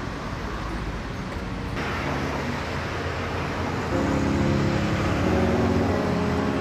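City road traffic noise: a steady rush of passing cars. Background music fades in about four seconds in.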